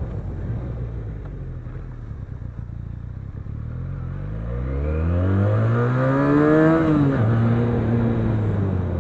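Benelli TNT 300's 300 cc parallel-twin engine, through its stock exhaust, running steadily, then revving up smoothly for about two and a half seconds before dropping back quickly and settling to a steady note.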